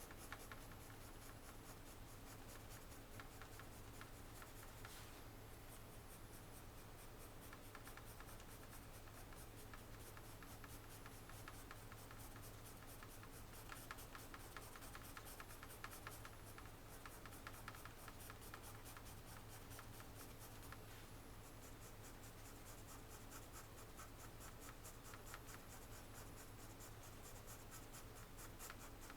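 Faint pencil scratching on paper in quick, repeated short strokes, with brief pauses, over a low steady hum.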